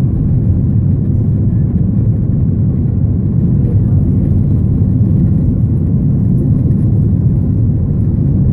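Airliner cabin noise during the climb after takeoff: a steady low rumble of jet engines and rushing air, heard from inside the cabin.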